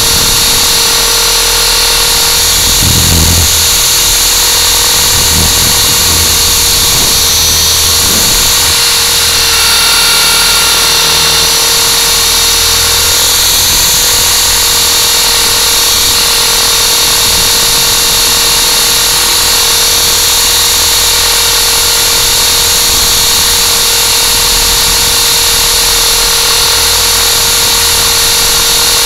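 Electric motors and rotors of a small radio-controlled aircraft hovering, heard through its onboard camera: a loud, steady motor whine made of several held tones.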